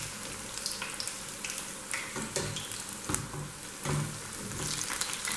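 Besan-battered potato and onion pakoras sizzling and crackling as they deep-fry in hot oil, with occasional scrapes and clinks of a metal slotted skimmer turning them over.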